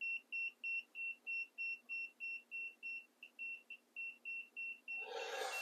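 Handheld EMF meter beeping steadily, about three short high beeps a second, its alarm set off by the field close to the running inverter. The beeping stops near the end, with a short burst of hiss.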